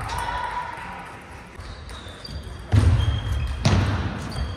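Two loud, low thuds about a second apart from a table tennis player's feet landing on a wooden sports-hall floor.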